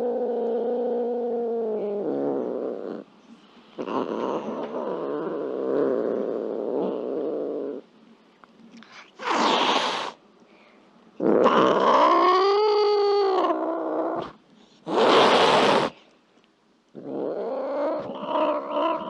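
Angry cat growling and yowling in drawn-out, pitched stretches, with two short hisses between them.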